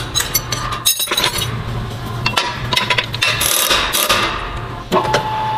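Steel parts of a drill bit clinking and knocking as they are handled in a workshop fixture, with a short hissing stretch of a rotary tool working a weld. About five seconds in, a machine's steady whine starts.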